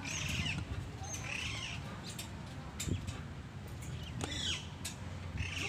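Small playground merry-go-round squeaking as it is pushed round, a rising-and-falling metal squeak repeating every second or two, with a few light clicks.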